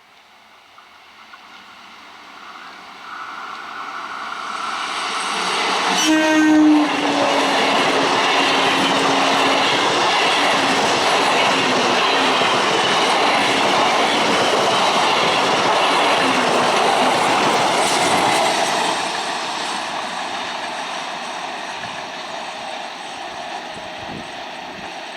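An Indian Railways electric train approaches, sounds one long horn blast about six seconds in that drops slightly in pitch, and then runs past loudly with wheel and rail-joint clatter for about ten seconds before fading away.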